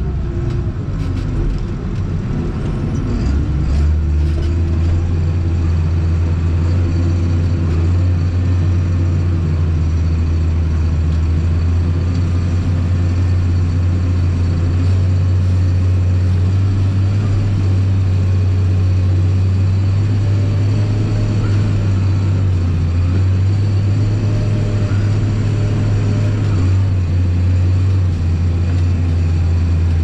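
Tractor engine running steadily under load, a loud low drone heard from inside the closed cab, with a brief dip in the drone about two to three seconds in.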